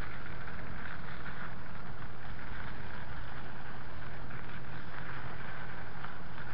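Steady wind and rolling noise on an action camera's microphone while riding a bicycle, a constant rushing with a faint low hum underneath.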